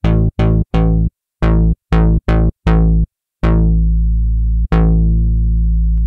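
TAL J-8 software synthesizer, a Roland Jupiter-8 emulation, playing its 'Bass Picker' bass preset. Seven short, plucky low notes, each bright at the start and quickly darkening, are followed from about halfway by two longer held bass notes.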